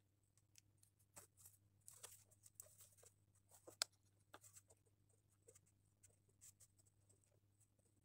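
Faint desk handling sounds as a pen is picked up: soft taps and rustles, with one sharp click a little under four seconds in. Then comes the faint scratching of a pen writing on paper.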